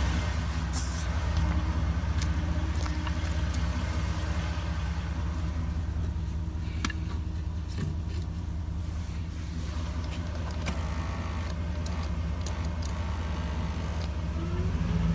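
Chevrolet Silverado's 8.1-litre V8 idling steadily, with a few faint clicks; at idle it doesn't sound bad.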